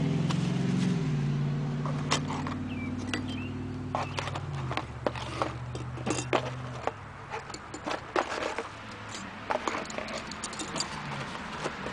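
Metal parts of a RUIXIN PRO knife sharpener, its rods and clamp pieces, clinking and scraping as they are lifted out and set down by hand, many small clicks. A vehicle engine hums low under the first half and fades away.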